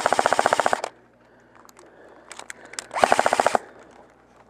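Airsoft gun firing two short full-auto bursts, a rapid even rattle of shots: one cuts off just under a second in and another comes about three seconds in, lasting about half a second.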